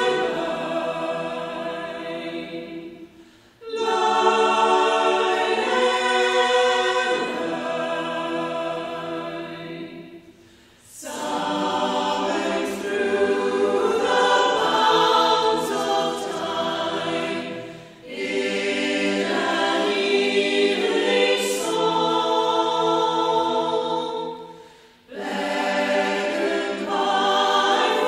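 Choir singing slow, sustained chords in long phrases, each fading into a short pause about every seven seconds.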